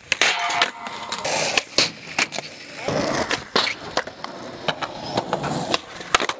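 Skateboard wheels rolling on pavement, broken by several sharp clacks of the board popping and landing.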